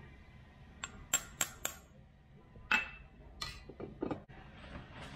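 Glass bowl and a thin kitchen utensil clinking and tapping against a stainless steel stand-mixer bowl while ingredients are tipped in and stirred. It is a series of about nine sharp clinks, one ringing briefly about three seconds in.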